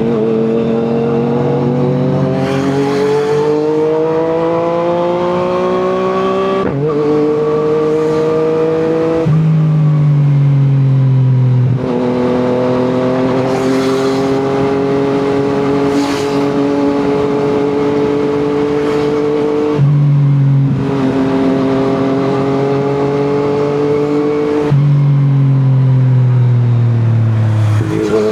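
Yamaha MT-09's three-cylinder engine running through an Akrapovic exhaust under way, its pitch climbing under acceleration and dropping abruptly at several gear changes, with stretches of steady running between.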